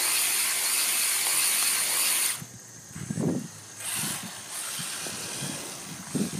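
Redcat Lightning EPX Pro electric RC car running flat out, its motor whining high with tyre noise. The whine cuts off suddenly a little over two seconds in, leaving quieter, uneven low rumbles.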